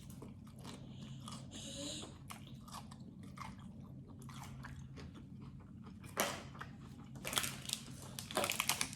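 Close-miked chewing and crunching of food: scattered small crackles and mouth clicks, with a few louder crunches between about six and eight and a half seconds in, over a steady low hum.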